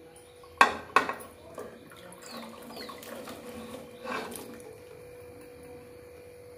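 Neem twigs and leaves tipped from a metal pot into an aluminium pressure cooker: two sharp metal knocks, then softer rustling and clinking, with another knock about four seconds in.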